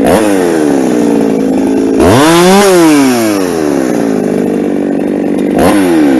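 Ported Husqvarna 372 two-stroke chainsaw running loud and steady, with its throttle blipped. A short rev comes right at the start and another near the end, and a longer rev climbs about two seconds in and then winds back down.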